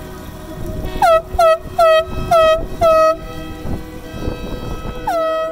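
A boat foghorn sounding a run of five short blasts, then a longer blast near the end. Each blast is one loud, bright note that dips slightly in pitch as it starts.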